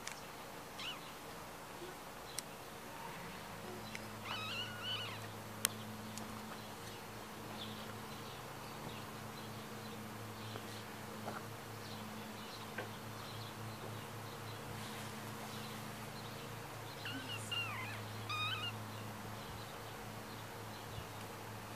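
A low steady hum that starts about three seconds in, with two brief clusters of high chirping calls, one about four to five seconds in and one near eighteen seconds, and a couple of sharp clicks.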